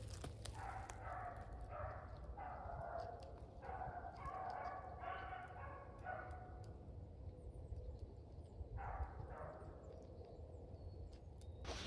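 A pack of rabbit hounds baying faintly as they run a rabbit, several voices overlapping in a string of drawn-out bays through the first six seconds, then two more about nine seconds in.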